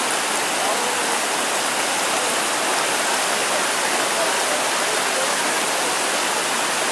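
Shallow mountain stream rushing and splashing over boulders: a steady, dense rush of water.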